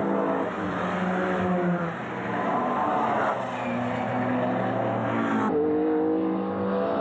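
Racing car engines revving as cars pass through a corner, their pitch rising and falling with the throttle; the sound changes abruptly about five and a half seconds in.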